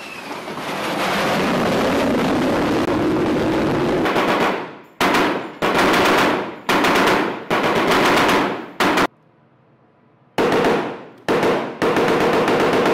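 Jet aircraft engine noise, loud and steady, for about the first four seconds. Then a deck-mounted machine gun fires a string of bursts of automatic fire, each half a second to a second long, with one pause of over a second near the end.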